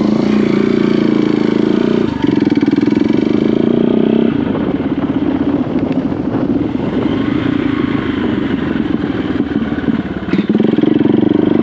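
A vehicle engine running steadily, its note shifting briefly about two seconds in and again about four seconds in.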